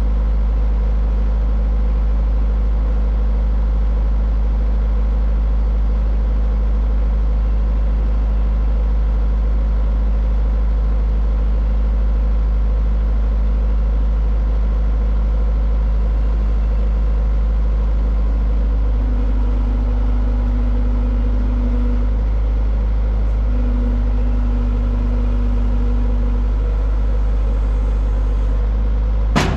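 Skid steer diesel engine running steadily under load while powering the hydraulic firewood processor. Its tone shifts about two-thirds of the way through, and a sharp crack comes right at the end.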